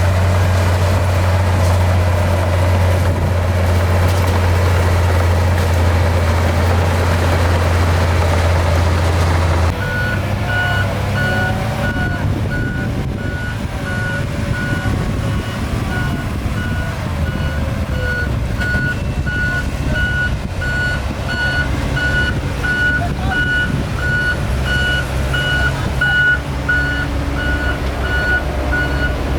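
Diesel earthmoving machinery running with a steady low drone. About ten seconds in the sound changes abruptly, and a reversing alarm beeps at an even pace, under two beeps a second, over the engine noise.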